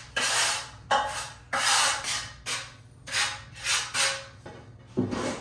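Trowel scraping a thin skin coat of mortar across the back of a tile, in about eight short strokes.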